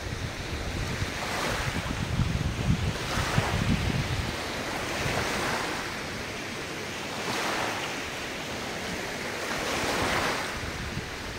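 Ocean waves washing onto the shore, one after another about every two seconds, with wind rumbling on the microphone during the first few seconds.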